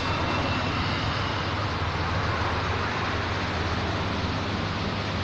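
Steady rushing noise with a low hum underneath, holding level throughout.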